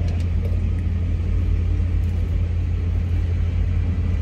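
Steady low rumble of a car, heard from inside its cabin.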